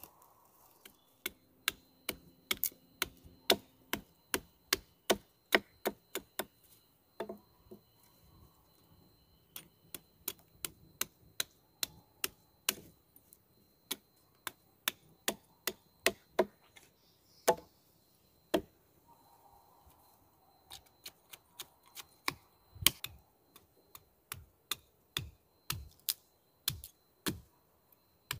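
Sharp chopping strikes on wood, a blade or tool hitting again and again, in runs of about two strikes a second broken by short pauses.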